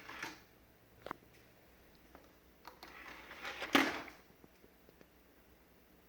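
Quiet handling noises: a few sharp clicks and a short clatter ending in a louder knock nearly four seconds in, with the music stopped.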